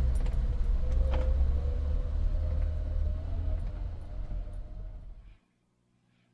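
Suzuki Samurai's engine running as it drives slowly along a gravel road, a heavy low rumble with a steady whine over it. The sound fades and cuts off suddenly about five seconds in.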